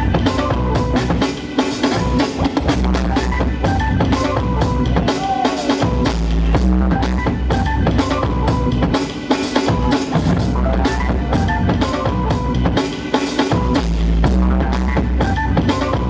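Loud drum-heavy music with a strong bass drum and bass line, its phrase repeating about every four seconds.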